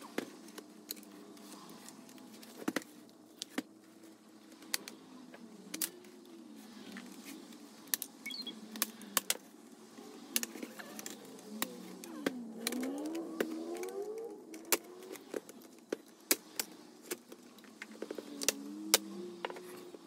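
Sharp plastic clicks and snaps, many scattered through, as the palmrest clips of an HP ProBook 430 G4 are pried loose with a plastic opening pick. A faint wavering tone that glides up and down runs underneath.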